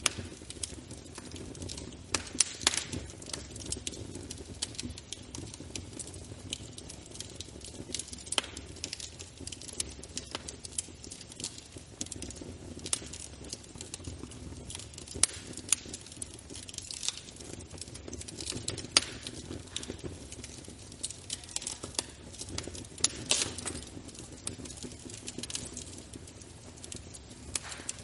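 Wood fire burning in a fireplace: irregular sharp crackles and pops, several a second, over a low steady rumble of the flames.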